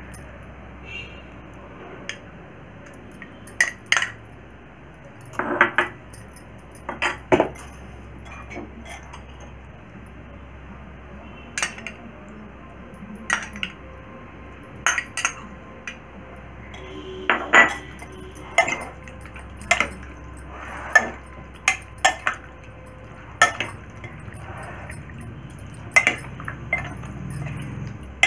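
Steel spoon clinking and tapping against glass bowls at irregular intervals while yoghurt is spooned onto raw chicken and stirred in with the spoon.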